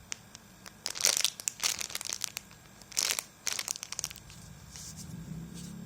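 Plastic crinkling and rustling in several short bouts as things are handled. About four seconds in, a motorcycle's engine hum rises and carries on in the background.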